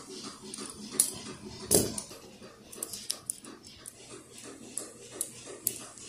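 Practice balisong flipped in the hand, its metal handles clicking and clacking against each other at irregular moments, with a heavier knock a little under two seconds in.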